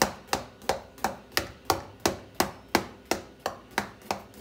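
A utensil poking holes into a chocolate cake in its baking pan: a steady run of sharp taps, about three a second.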